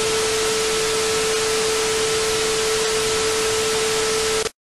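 Television static: a steady loud hiss with one constant mid-pitched tone under it, cutting off abruptly near the end.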